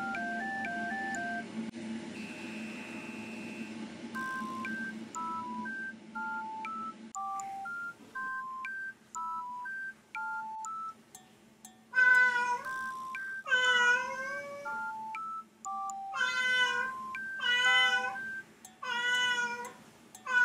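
A domestic cat meowing loudly over light, plinking background music. Five long meows come in the second half, a cat left alone crying for its absent owner.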